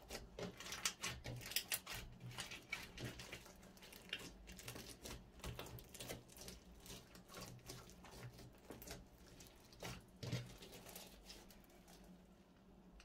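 Slime being squished and worked by hand: irregular sticky clicks and pops, thickest in the first few seconds and thinning out near the end.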